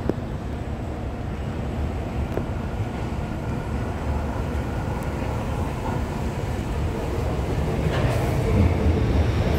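Alstom Movia R151 electric train approaching and pulling into the station, a steady rumble of wheels on rails growing louder as it nears, fuller and brighter near the end as it reaches the platform.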